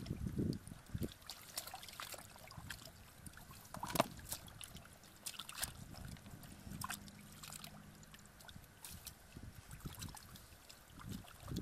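Hands sloshing and splashing in shallow muddy water while groping for fish, with small irregular splashes and drips, a sharper splash about four seconds in.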